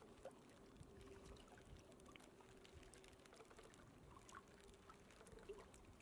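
Near silence: faint water lapping and trickling, with many tiny scattered clicks.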